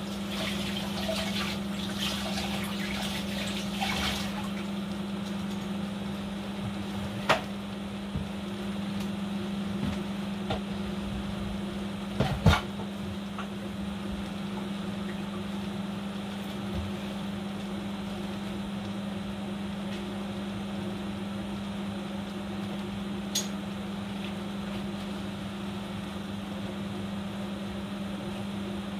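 A pot of food boiling hard on the stove, its contents bubbling steadily over a constant low hum. A few short sharp knocks break in, the loudest about twelve seconds in.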